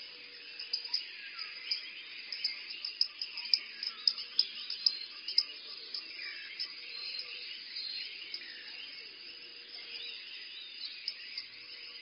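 Forest insect and bird ambience: a steady high chorus with sharp, short insect chirps, densest in the middle stretch, plus brief high bird notes and falling whistled calls.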